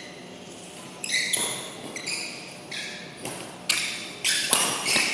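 A badminton rally on an indoor court: a series of sharp racket-on-shuttlecock hits and brief high-pitched squeaks of shoes on the court floor, about eight in all. The loudest come near the end.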